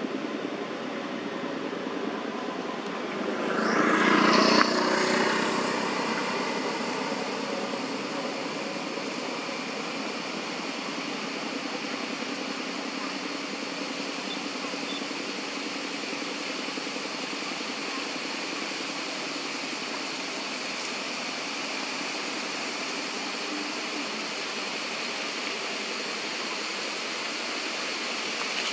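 Steady outdoor background noise, with a passing vehicle swelling louder about four seconds in and fading over the next few seconds.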